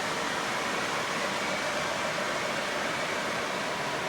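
Steady, even whirring and rolling hiss of O gauge model trains running on the layout's track.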